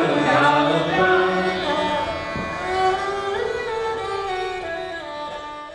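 Music with long held melodic lines, gradually fading out.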